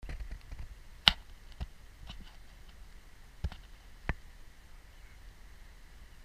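A few sharp clicks and knocks close to the microphone, the loudest about a second in, over a faint low rumble.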